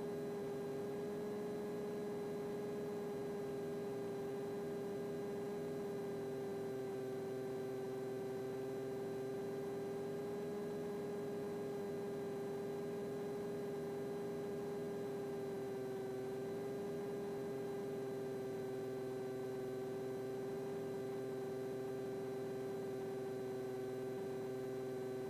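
Steady hum on a light aircraft's intercom audio feed: one even pitch with several overtones, holding level throughout.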